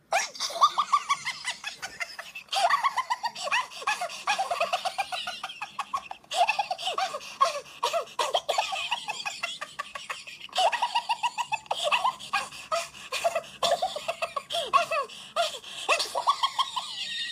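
Minion cartoon voices laughing hysterically in high-pitched, rapid ha-ha pulses, in several long bouts that start over again every few seconds.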